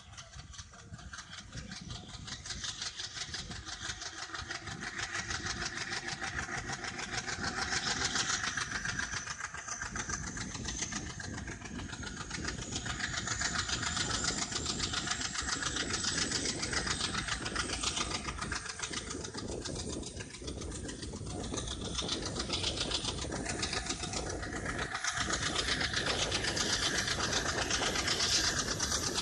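Diesel locomotive engine chugging under power, with a thin high turbocharger whine that slowly climbs in pitch, over the running noise of the moving train. The chugging builds over the first few seconds.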